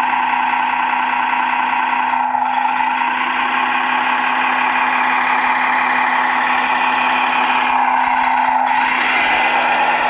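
The electric drive of a 1/14 Tamiya RC truck whining steadily as it drives, with a constant hum beneath. It eases off briefly about two seconds in and again near the end.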